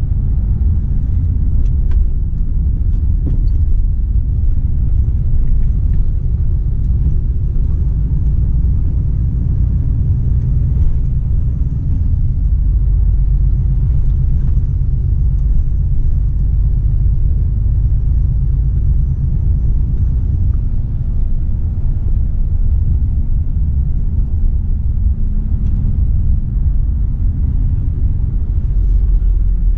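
Volvo FH 460 truck on the move: its diesel engine and the road give a steady low rumble.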